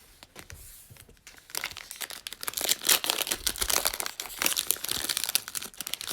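Trading-card pack wrapper being torn open and crinkled by hand, a dense crackling that swells about a second and a half in.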